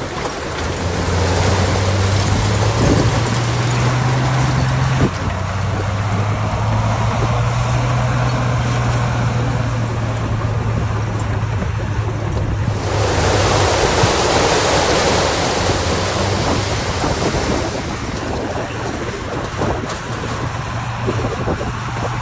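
Diesel engine of heavy earthmoving machinery running with a steady low hum that shifts pitch about five seconds in. From about thirteen to eighteen seconds in, a loud rushing noise covers it.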